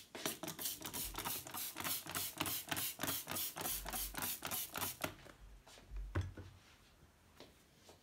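Trigger spray bottle misting a window pane, pumped quickly about three times a second for roughly five seconds, each pull a short hiss of spray. After the spraying stops there are a few softer clicks and knocks.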